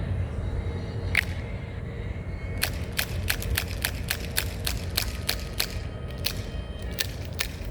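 Glock 19 BB pistol firing on CO2: one shot about a second in, then a quick string of more than a dozen shots, about two to three a second. The CO2 is running out, so the BBs fall short of the wall.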